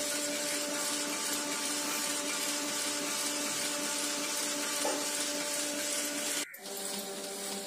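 Ryobi 3302M two-colour sheet-fed offset press running at high speed: a steady mechanical rush with a held hum and whine. About six and a half seconds in, the sound cuts out for an instant and comes back a little quieter, with its hum at a different pitch.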